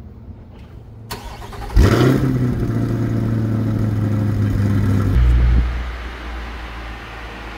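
2022 Chevrolet Corvette Stingray's 6.2-litre V8 starting: a brief crank, then the engine catches with a loud rev flare about two seconds in and settles into a steady fast idle through the quad exhaust. About five seconds in, the idle turns quieter and deeper.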